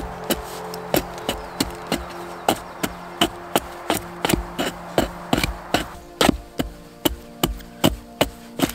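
Hatchet carving a feather stick from dry kindling, stroke after stroke, each one a sharp wooden knock, about three a second. The shavings are for lighting a fire without fire starter.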